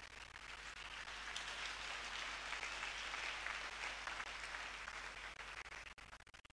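Congregation applauding faintly: the clapping swells through the middle and dies away near the end.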